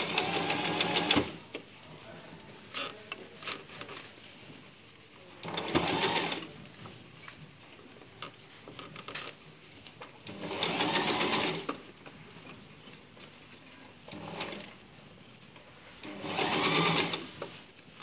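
Sewing machine stitching in short runs, four main bursts of about a second each with pauses between and a few brief blips and clicks in the gaps. This is slow stop-and-start sewing of a flounce onto a narrow sleeve end.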